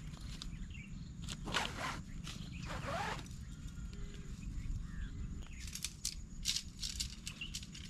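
A nylon tent pack and its strap being handled: two short rasping pulls, then quick crisp rustling of tent fabric near the end as it is spread out.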